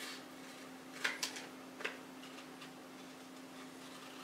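Scissors snipping through thin coloured cardboard: three short crisp snips in the first two seconds, then quieter cutting, over a faint steady low hum.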